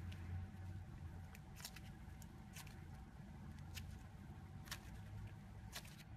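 Thick slime being folded and squeezed by hand: quiet, soft handling sounds with scattered small clicks and pops every second or so.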